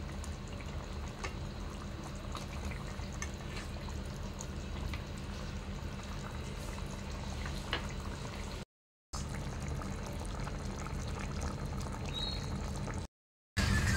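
Tilapia fish curry simmering in a pan, its gravy bubbling with small faint pops over a steady low hum. The sound cuts out completely twice, briefly, near the end.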